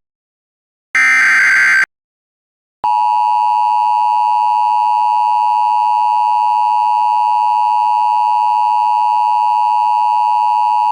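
Emergency Alert System tones. About a second in comes the last short burst of the digital SAME data header, under a second long. From about three seconds in, the loud, steady attention tone holds without a break.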